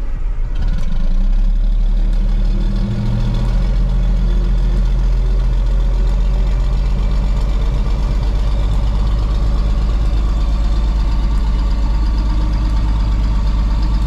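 Caterpillar D7 dozer's diesel engine cold-starting after glow-plug preheat. It catches within the first second, runs a little higher for a couple of seconds, then settles into a steady idle.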